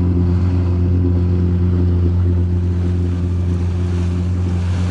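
Yamaha FX HO WaveRunner jet ski engine running at a steady speed, a constant hum, with water rushing and hissing off the hull.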